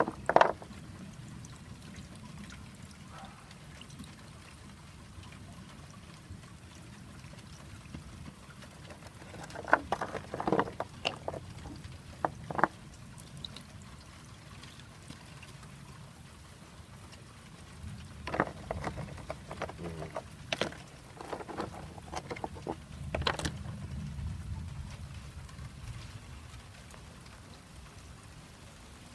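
Water pouring and trickling from a white PVC diverter hose onto river stones and lava rock in a rain barrel's planter top. Sharp knocks and splashes come in clusters: a loud one near the start, a run about ten seconds in, and more around twenty seconds in.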